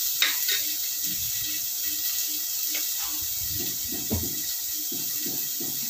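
Chopped onions sizzling in hot ghee in an aluminium pressure cooker: a steady hiss, with a couple of faint clicks.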